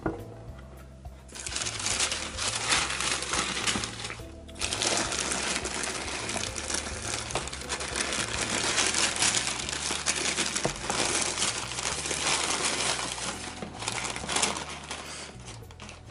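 Shoebox tissue paper crinkling and rustling as hands unfold it, in a long run of crackles with a brief pause about four seconds in. Background music plays underneath.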